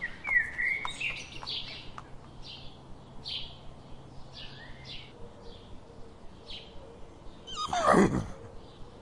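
Small birds chirping in short repeated calls, with a few sharp clicks in the first couple of seconds from a grazing horse cropping grass. About eight seconds in comes a loud call falling steeply in pitch, a horse's whinny.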